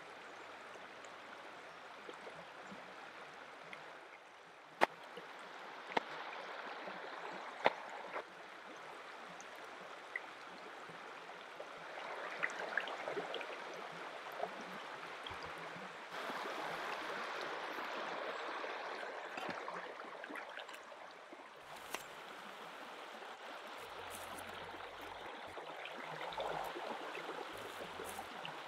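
A river or stream flowing steadily, with a few sharp clicks and knocks over it, the loudest about five to eight seconds in.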